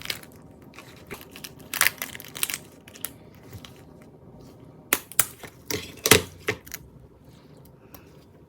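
Things being handled on a table at close range: irregular crinkling rustles and sharp clicks in two clusters, about two seconds in and again around five to six and a half seconds in.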